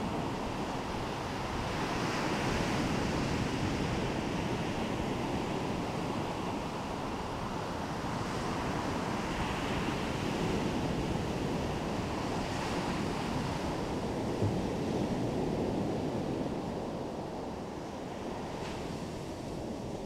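Ocean surf washing onto a beach, with wind blowing over the microphone; the wash swells and eases every few seconds.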